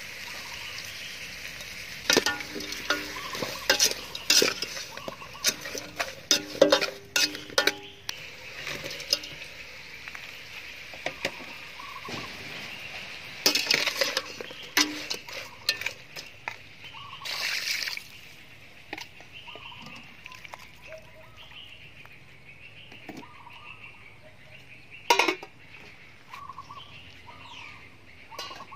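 Chicken, lemongrass and chilli sizzling as they stir-fry in a large metal pot, with a metal utensil clanking and scraping against the pot many times. The sizzle and clanking fade after about ten seconds, leaving only scattered knocks.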